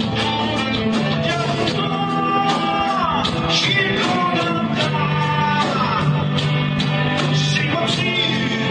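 Heavy metal band playing live: electric guitar and bass over drums, loud and steady, with several falling pitch slides.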